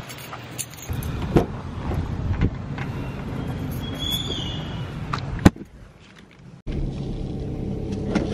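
Keys jangling and a car door being opened, then the car door shutting with a single sharp thump about five and a half seconds in. After a short hush, a steady low hum comes from inside the car.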